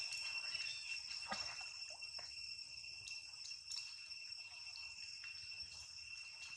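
Insects shrilling in one steady, unbroken high-pitched drone, with a few faint ticks.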